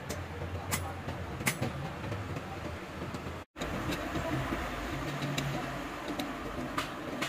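Socket wrench and other steel tools clinking on a diesel engine block as bolts are turned on the timing-gear plate, a few sharp metallic clicks over a steady low rumble. The sound drops out for a moment midway.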